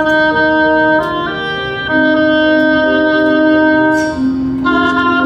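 High school marching band playing long held chords, the chord changing about a second in, again at about two seconds, and once more near the end.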